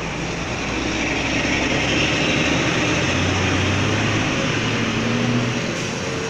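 Road traffic, with a large vehicle's engine running close by. The noise swells about a second in and eases off near the end.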